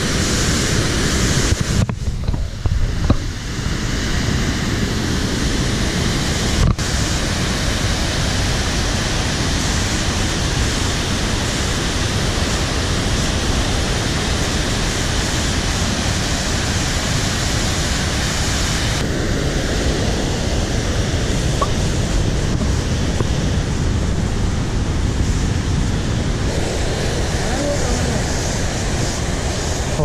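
Large waterfall in full flood, a steady, loud rush of heavy water crashing over rock, changing character abruptly a few times.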